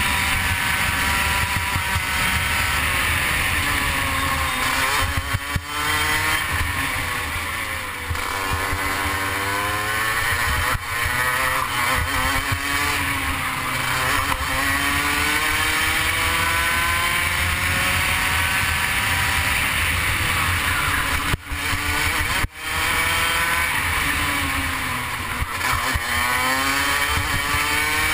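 Rotax Max Junior 125cc single-cylinder two-stroke kart engine running at racing speed, its pitch repeatedly climbing as it accelerates out of corners and dropping off as it slows into the next one, with a few brief dips in level.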